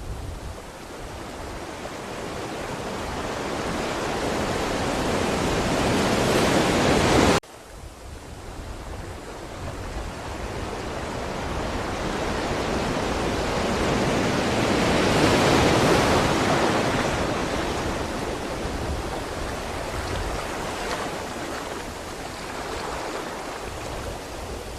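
Ocean waves surging and washing onto the shore. One wave builds and then cuts off abruptly about seven seconds in. A second swells to a peak near the middle and slowly recedes.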